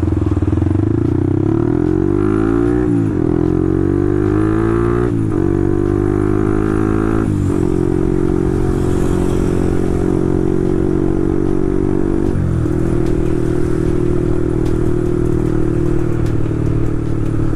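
Motorcycle engine through its aftermarket exhaust, accelerating through the gears: the pitch climbs and drops back at each shift, three times in the first eight seconds, then holds steady at cruising speed with one small dip near the middle.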